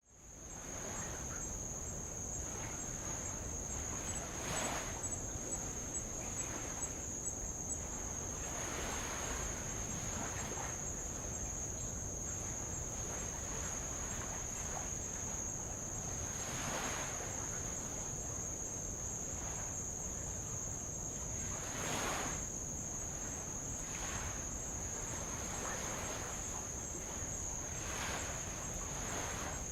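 A steady, high-pitched insect trill throughout, over light waves washing against old lava rock, with a soft swash every few seconds.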